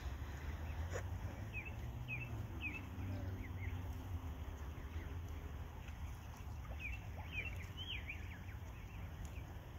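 Canada goose goslings peeping: short high chirps in scattered clusters, over a steady low background rumble.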